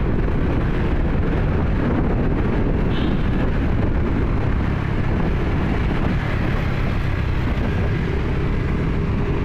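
Steady wind noise on the microphone mixed with the engine and tyre noise of a motorcycle riding along a wet road.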